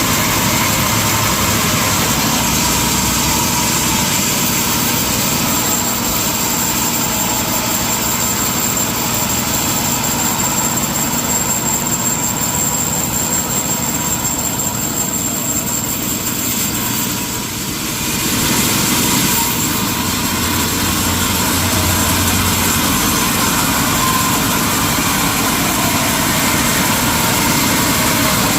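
Industrial sawmill machinery running steadily, with a constant high whine over a dense noise, dipping briefly about seventeen seconds in.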